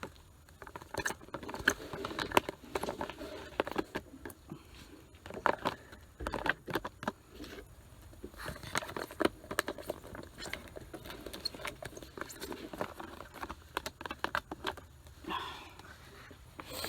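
Irregular light clicks, scrapes and rustling from a freeze-dried meal pouch being handled as the rehydrated food is dished out of it.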